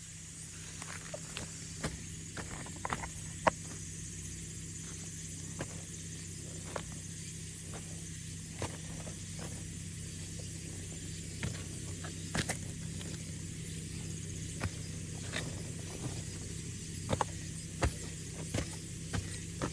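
Off-road vehicle's engine running steadily at low revs, with many scattered sharp clicks and creaks and a steady high hiss.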